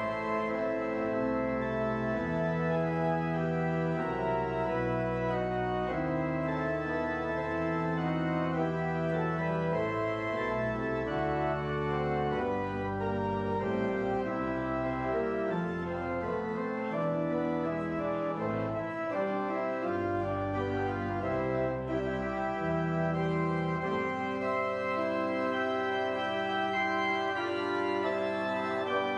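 Church organ playing a piece of sustained chords over deep bass notes, the harmony changing every second or two.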